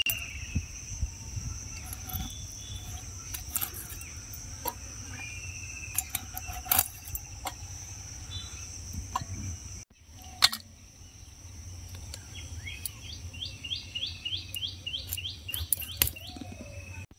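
Singi catfish being cut into pieces on a boti blade: scattered sharp cuts and knocks as the blade goes through the fish, over a steady high drone of insects.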